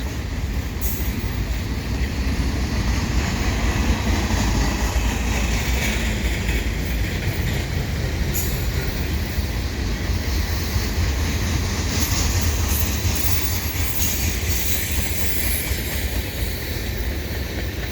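Freight cars (grain hoppers and gondolas) of a slow freight train rolling past, a steady rumble of steel wheels on rail with a few brief sharp clicks.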